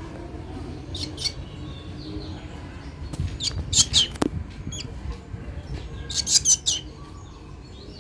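Young black bird chirping in short, high, sharp calls, in three bursts: about a second in, between three and four seconds in, and around six seconds in.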